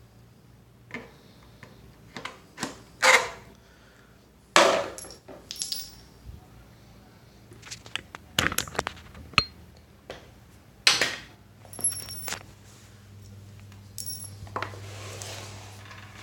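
Knocks and clatter of a small engine's air filter element and plastic airbox parts being handled, about ten separate hits spread out, a few with a brief high ring.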